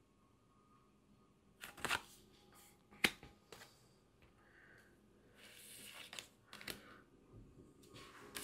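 Tarot cards being handled: faint sharp clicks and taps on the cards, with a brief sliding rustle about two-thirds of the way through.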